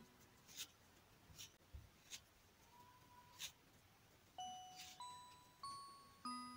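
Near silence with a few faint soft clicks, then gentle background music of single chiming, music-box-like notes starting about four seconds in.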